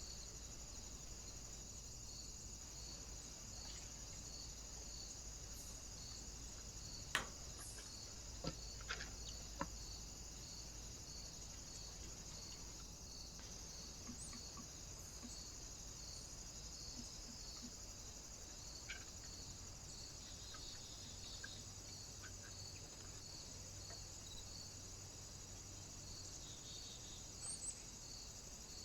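Steady, faint high-pitched hiss with a soft pulse about once a second, the trail camera's own electronic noise, with a few sharp taps about a quarter of the way in and single ticks later on.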